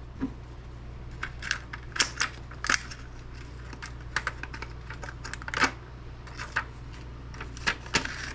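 Scattered light clicks and clinks of a light ballast being handled and pried apart by hand, small metal and plastic parts knocking as the casing is opened, over a steady low hum.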